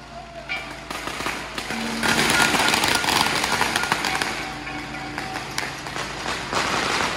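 Strings of firecrackers going off in a rapid, dense crackle of many small bangs, starting about a second in and thickest from about two seconds on.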